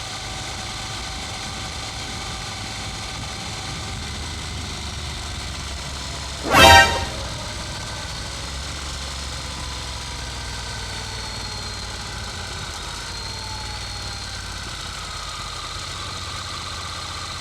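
Steady running noise of a Honda NC750X DCT motorcycle's parallel-twin engine, with a single short vehicle horn honk about six and a half seconds in, the loudest sound.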